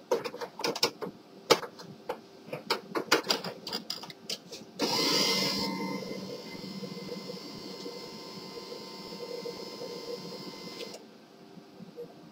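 HP LaserJet M1522 multifunction printer warming up after power-on: a run of clicks, then about five seconds in its mechanism starts with a short rushing burst and runs steadily with a thin whine for about six seconds before stopping.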